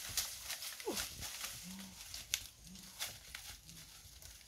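Footsteps crunching over dry leaves and loose stones, with one falling animal call about a second in and a few short, low calls repeating roughly once a second.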